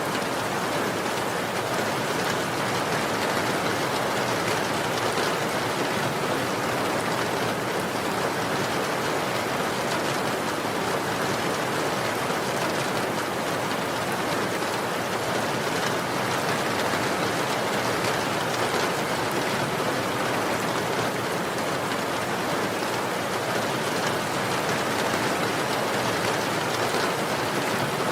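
Steady rainfall, an even, unbroken patter of rain on a surface.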